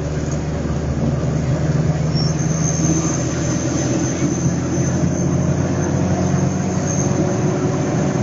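Vehicle engine and road noise heard from inside the cabin while driving: a steady hum, with a thin high whine coming in about two seconds in.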